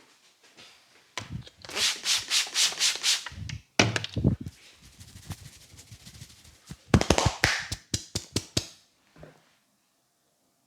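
Hands rubbing and striking vigorously over a head of hair and scalp in quick rhythmic strokes during a head massage. There are two runs of several strokes a second, with a few heavier strokes between them.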